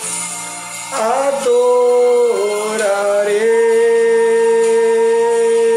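A man singing a Portuguese Christian worship song into a handheld microphone. He slides between notes early on, then holds one long note from about three and a half seconds in.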